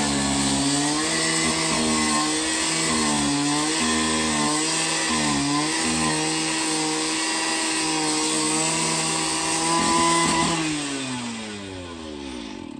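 Handheld cut-off saw with a spinning disc cutting through steel rebar. The motor runs at a steady high speed with brief dips in pitch as the disc bites. About ten seconds in it is released and winds down with a falling pitch.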